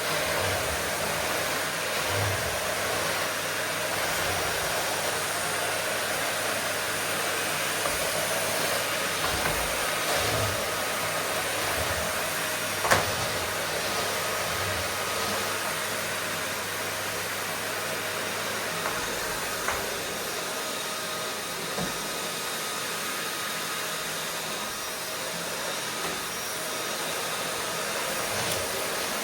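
Vacuum cleaner running steadily, an even rushing hiss of its motor and airflow with a faint steady whine. A sharp click about halfway through and a few fainter knocks later.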